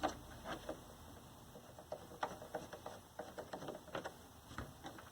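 Screwdriver backing out the cabinet screws of a TV's back cover: faint, irregular light clicks and ticks, a few a second.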